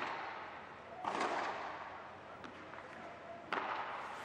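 Padel rally: a ball struck back and forth with rackets, several sharp hits a second or so apart, each ringing briefly in the enclosed glass-walled court.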